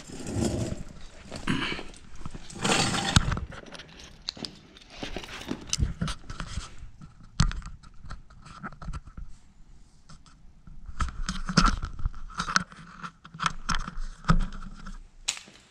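Handling noise: irregular scraping, knocking and rustling as a camera is moved and set down, with a person moving about close by.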